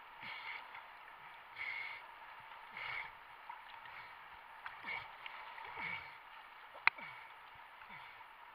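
River water sloshing and gurgling around a half-submerged action camera, in noisy surges about once a second with falling bubbly gurgles. A single sharp knock comes about seven seconds in.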